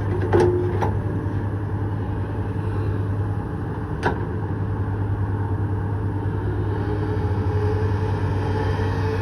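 Hydraulic excavator's diesel engine running steadily, with three sharp metallic knocks: two in the first second and one about four seconds in.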